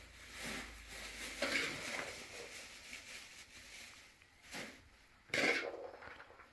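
Dried red beans scooped with a metal ladle from a steel tray and poured into a plastic bag: the ladle scraping the tray and the beans rattling into the rustling plastic, in several short bursts, the loudest about five seconds in.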